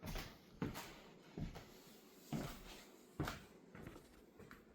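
Footsteps, about five steps roughly a second apart.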